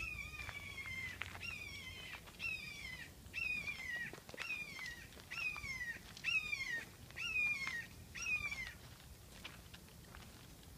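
Red-shouldered hawk call series: about nine loud, descending screams, roughly one a second, stopping shortly before the end.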